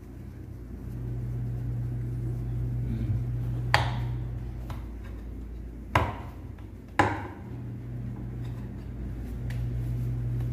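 Three sharp knocks on a wooden rolling board while a stuffed dough ball is pressed and shaped by hand, over a low hum that comes and goes.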